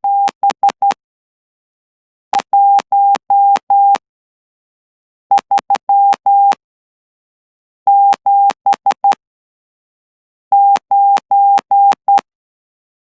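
Morse code keyed by hand on a straight key at about 12 words per minute, heard as a single steady beep tone switched into dots and dashes, each on and off with a slight click. The characters come in five groups, with pauses of about a second and a half between them.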